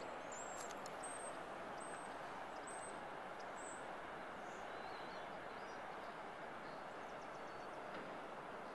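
Steady rush of distant ocean surf from the tsunami surge breaking along the beach. A few short high chirps come in the first seconds.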